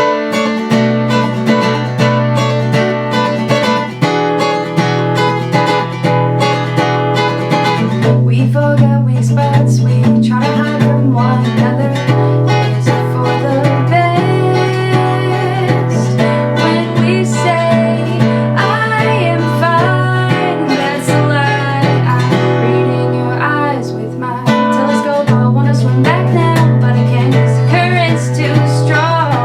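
Acoustic guitar playing an original song, starting abruptly, with a woman singing over it from about nine seconds in.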